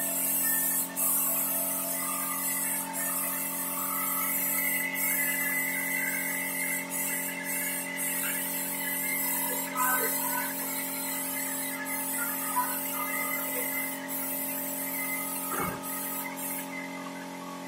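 A steady mechanical hum with several fixed tones and a high hiss over it. The hiss cuts off near the end, and there is a single low thump shortly before.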